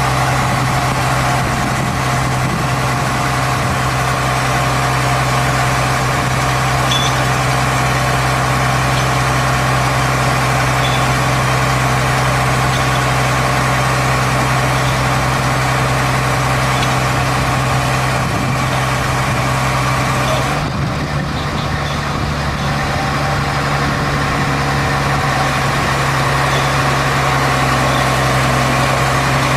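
Diesel engine of a hydraulic piling rig's tracked excavator base (a UH07 carrier) running steadily with an even low drone as the rig drives up onto a low-loader trailer. About two-thirds of the way through, the upper hiss drops away for a few seconds and the level dips slightly.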